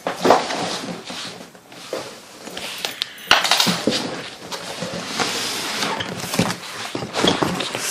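Cardboard shipping box and its packing being handled and pulled open: irregular scraping and rustling, with a few sharp clicks about three seconds in.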